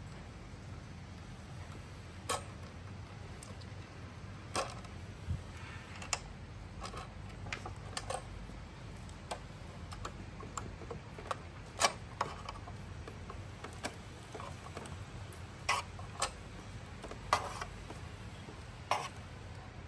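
Small hand tool clicking and tapping against the screws and blade disc of a robotic lawnmower's cutting deck as its blades are worked on: irregular sharp clicks, about one every second or two, over a low steady hum.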